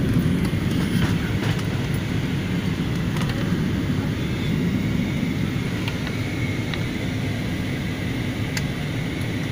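Steady low rumble of an airliner's engines and airflow heard from inside the passenger cabin, with a faint steady whine joining about halfway through and a few small clicks near the end.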